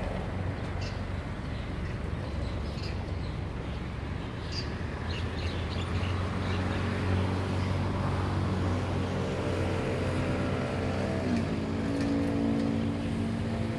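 A motor vehicle engine running steadily with a low hum. About two-thirds of the way in a higher engine drone joins it, and it drops in pitch shortly after.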